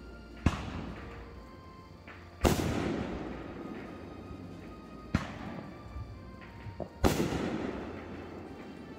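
Aerial firework shells bursting: four sharp booms about two seconds apart, the second and fourth loudest, each trailing off over a second or more, with a small pop just before the last.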